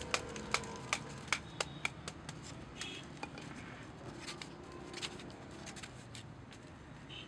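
Wooden mallet knocking down the cane tops of a bamboo stool frame, two or three sharp knocks a second for the first couple of seconds. After that come scattered, lighter clicks as the bamboo frame is handled and turned over.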